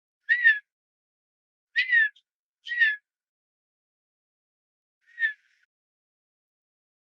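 Male Redhead duck giving four short whistled courtship calls to a female, each ending with a slight drop in pitch; the last is fainter.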